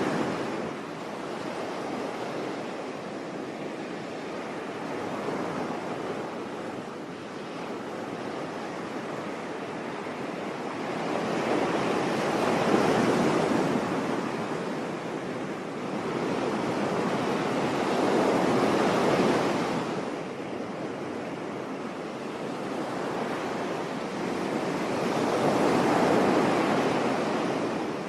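Sea waves washing onto a shore: a steady rush of surf that swells and fades, with three louder waves breaking in the second half, roughly six or seven seconds apart.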